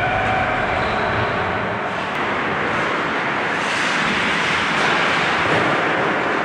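Ice hockey play heard in a reverberant ice hall: a steady wash of skate blades scraping the ice and sticks working the puck in front of the goal. A held tone with overtones fades out about a second in.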